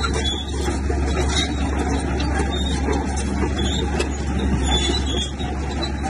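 Bulldozer's diesel engine running steadily under load, a continuous low rumble with irregular metallic clatter on top.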